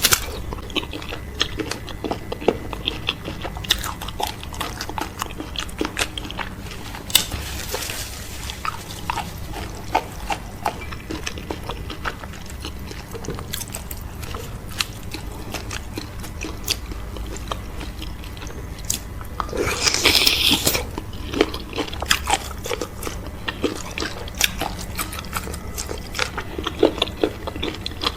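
Close-miked eating sounds of cow foot with fufu and okra soup: a steady stream of short chewing and biting clicks, with a longer, louder slurp about twenty seconds in and a shorter one about seven seconds in.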